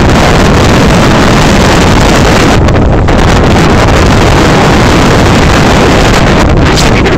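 Loud, steady rush of storm wind buffeting the microphone together with churning floodwater from the overflowing lake, a dense noise with heavy low rumble.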